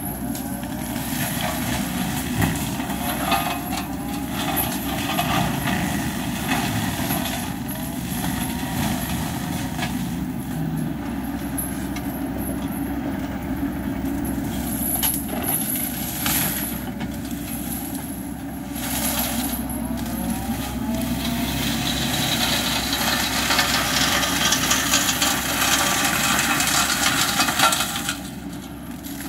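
Wacker Neuson ET65 mini excavator's diesel engine running under load, driving a hydraulic forestry mulcher whose spinning rotor shreds shrubs and branches. The shredding gets denser and louder over the last several seconds, then drops off sharply near the end.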